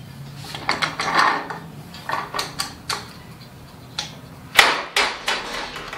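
Metal clanks and knocks from the arms of an Anatol Lightning manual screen printing press being handled and adjusted. There is a series of separate knocks, and the loudest comes a little past the middle.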